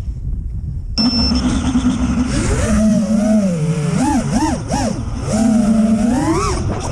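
FPV freestyle quadcopter's brushless motors (EMAX ECO 2306 1700 kV on 6S, Ethix props) whining. They come in suddenly about a second in over a low rumble, then rise and fall in pitch with the throttle, with several quick throttle punches in the middle and a climb near the end.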